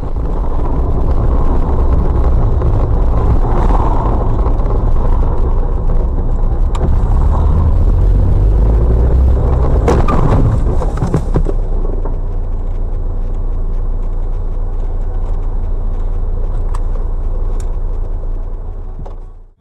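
Engine and road noise of a moving car heard from inside the cabin through a dashcam microphone: a steady, loud low rumble that eases slightly about halfway through.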